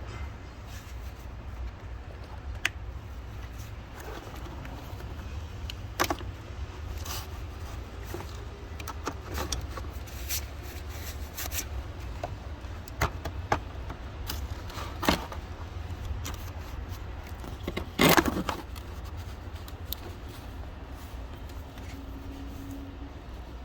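Scattered sharp metallic clicks, clinks and scrapes of hand tools and parts being handled during work on the car, the loudest cluster about eighteen seconds in, over a steady low rumble.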